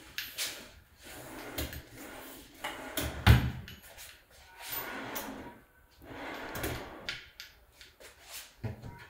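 Wardrobe drawers on their runners being slid open and pushed shut several times, each stroke a short sliding rush, with a heavier thump about three seconds in.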